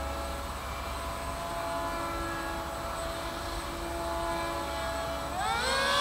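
Three-prop electric RC Sukhoi Su-30 foam model in flight, its three brushless motors and propellers giving a steady siren-like whine of several tones together. Near the end the whine sweeps sharply up in pitch and gets louder.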